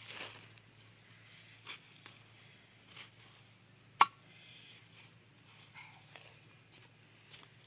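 Machete chopping leafy greens on a wooden block: a few separate chops with pauses between, the sharpest and loudest about four seconds in.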